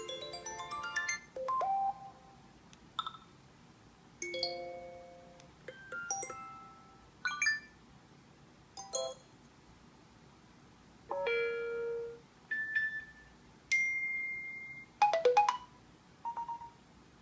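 iOS 7 ringtones and alert tones previewed one after another from an iPad: a quick melody cuts off about a second in, followed by about a dozen short chiming tones, each a second or less long with brief pauses between them.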